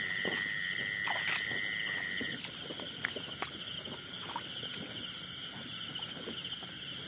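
Night insects trilling steadily in two high, continuous trills, the higher-pitched one pulsing throughout and the lower one stopping about two and a half seconds in. Scattered faint clicks and rustles in the grass sound over the trills.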